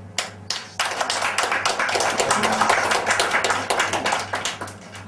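A small audience applauding: a couple of single claps, then a burst of clapping from about a second in that thins out near the end.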